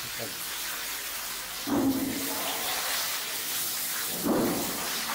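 Steady hiss of running water, with two short louder sounds about two and four and a half seconds in.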